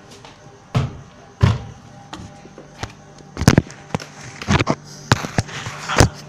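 Irregular knocks and thumps against wooden cupboard panels, about eight of them, with the loudest about halfway through and near the end.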